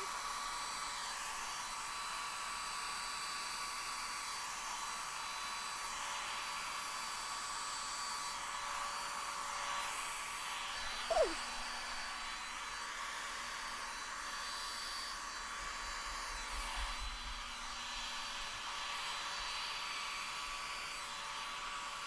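Revlon handheld hair dryer running steadily on its cool, high setting: a constant rush of air with a fixed whine in it. A brief falling squeak cuts in about halfway through.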